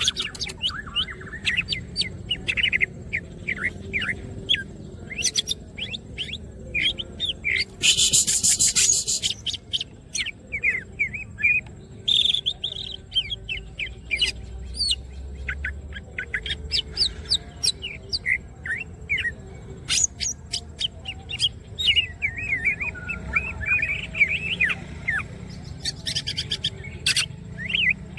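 Green leafbird (cucak ijo) singing a fast, varied song of chirps, whistles and trills. It gives a harsh buzzy burst about eight seconds in and another near the end.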